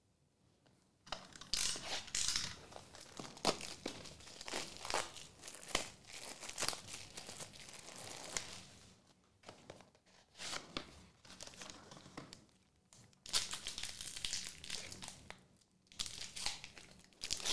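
Trading-card pack wrapper and plastic packaging crinkling and tearing as a pack is handled and opened by hand: a string of crackly rustles with small clicks, starting about a second in, with brief lulls between bouts.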